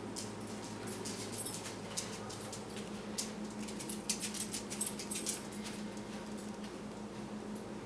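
Cats' claws tapping and scratching at a window sill and blinds: sharp light clicks in quick, irregular runs, thickest in the middle, over a steady low hum.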